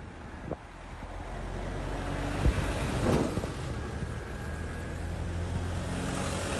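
A small motor scooter's engine running steadily along a street, with traffic and street noise around it; the sound swells briefly about three seconds in.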